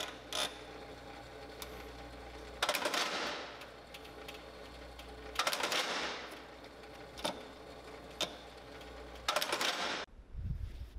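Shoe repair machine working the stacked leather heel of a boot: a steady motor hum with three louder bursts of noise, each about a second long, at about three, six and nine seconds in, and a few sharp clicks between. The hum cuts off just before the end.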